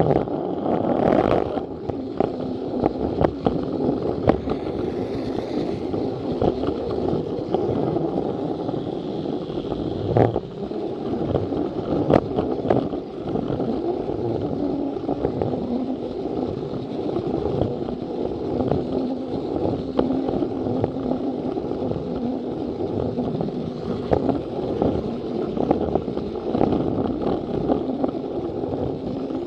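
Battery-powered Plarail toy train running along plastic track: a steady motor whir with a hum, and frequent clicks and clatter as the wheels cross the track joints.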